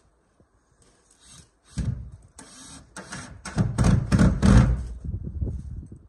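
Cordless drill-driver driving screws into a wooden shed door in short bursts. It starts about two seconds in and is loudest just past the middle.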